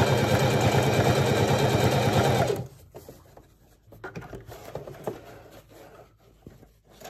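Electric sewing machine stitching a hem through heavy cordura-type fabric, running steadily and stopping suddenly about two and a half seconds in. After that, quieter rustling and light knocks as the fabric is handled and pulled off the machine.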